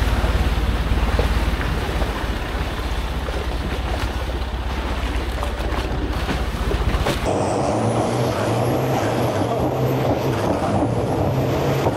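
Turbo diesel longtail riverboat engine running under way, with wind buffeting the microphone. About seven seconds in the sound changes to a steadier engine note with a high whine that rises and falls.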